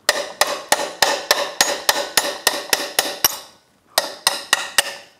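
Hammer tapping a steel punch against the woodruff key on an outboard lower unit's drive shaft: a steady run of about three sharp metallic taps a second, each ringing briefly, a short pause a little past three seconds in, then four more taps. The taps are driving the key round until it rotates out of its slot in the shaft.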